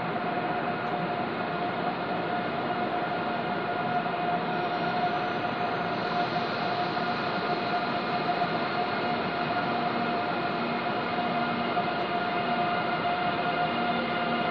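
Train pulling slowly into the station: a steady rumbling hum with a held high tone running through it, growing a little louder about four seconds in.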